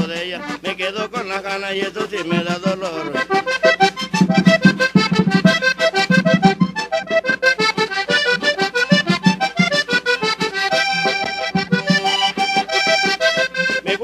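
Diatonic button accordion playing a fast vallenato melody, over percussion keeping a quick, steady beat.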